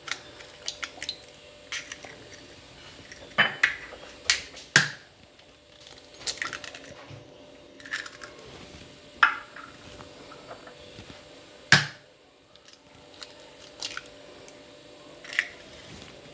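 Raw eggs being cracked against a bowl and their shells broken open: a series of sharp taps and cracks, spaced a second or more apart.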